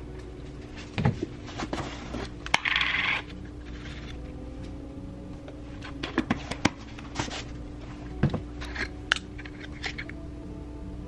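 Small hard clinks, taps and knocks of kitchen utensils and containers as smoothie ingredients go into a blender cup. There is a short scraping rustle about three seconds in.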